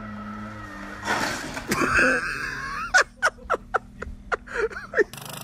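Small motorcycle's engine running, then a noisy crash about a second in and a cry. From about three seconds, a person laughs in short wheezing bursts, about four a second.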